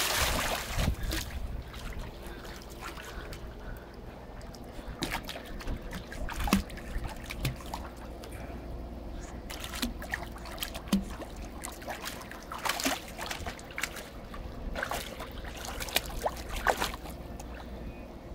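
A dog plunging into a swimming pool with a loud splash, then pool water sloshing and lapping with scattered small splashes as she swims.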